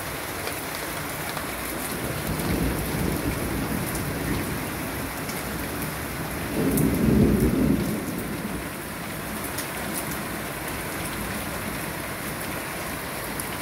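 Steady rain falling in a thunderstorm. Low thunder rumbles about two seconds in, then a louder rumble lasting about a second and a half comes about halfway through.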